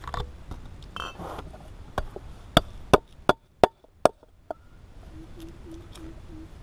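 A heavy cleaver knocks on a round wooden chopping block, with about seven sharp, uneven strikes close together around the middle.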